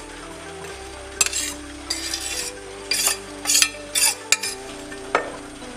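Metal spoon scraping grated coconut off a steel plate into a bowl of flour, in several short scrapes, with a sharp knock of metal near the end.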